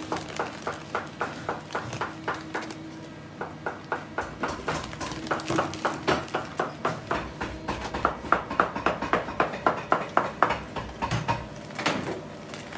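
Quick rhythmic strokes of a hand tool worked along a white rubber shoe sole, about two to three a second, fastest and loudest a little past the middle, over a faint steady machine hum.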